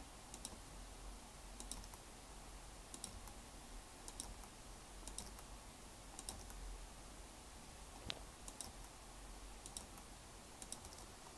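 Faint computer keyboard and mouse clicks: short sharp clicks, mostly in close pairs, about once a second, as the cursor is placed and Enter is pressed to break a line of text.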